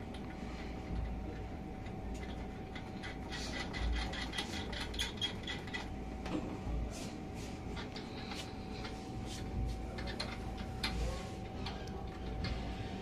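Irregular runs of light metallic clicks and taps from hand work on a reflow oven's lower side panel, as its fittings are being fastened back up. A steady hum sits underneath.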